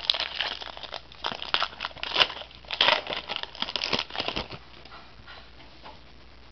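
Crinkling and crumpling of a trading card pack's plastic wrapper as it is opened and handled. It is dense and crackly for about four and a half seconds, then dies down to a few faint ticks.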